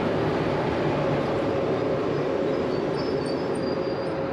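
A standing train locomotive running: a steady rushing noise with a constant hum.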